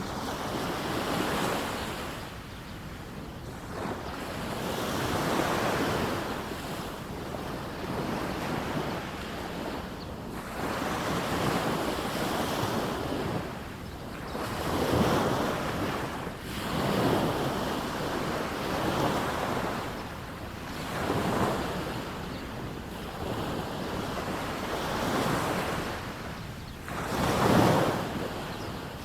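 Small waves breaking and washing up a sandy beach, each swell rising and falling every two to three seconds, the loudest one near the end, with wind buffeting the microphone.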